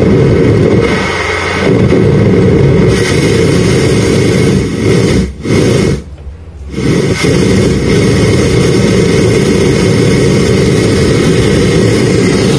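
Home theatre speaker putting out a loud, distorted rumbling noise with no recognisable music. It drops out briefly twice, about five and six seconds in. This is the sound fault under repair.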